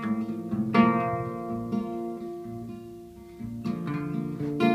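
Music: an acoustic guitar strumming chords between sung lines of a song, each chord struck and left to ring, four strums in all.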